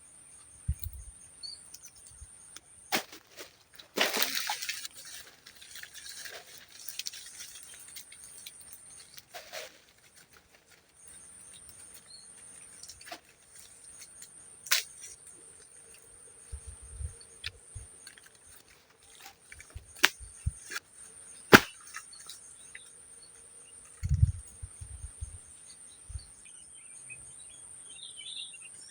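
Steady high-pitched drone of insects, broken off briefly about ten seconds in, with scattered sharp clicks and a few short low thumps.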